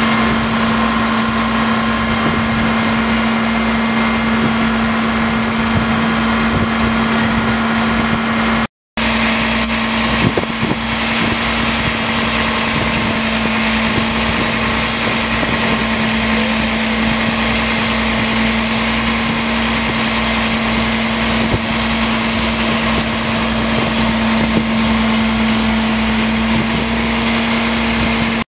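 Fire truck's diesel engine running at a steady speed, with a strong, even hum that does not change. The sound drops out briefly about nine seconds in.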